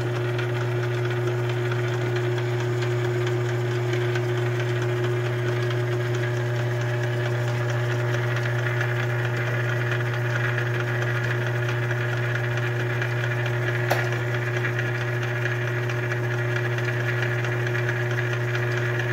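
South Bend 9A lathe running under motor power in back gear, its change-gear train with the metric transposing gears meshing: a steady hum with a constant whine, running smoothly. A single light click comes about two-thirds of the way through.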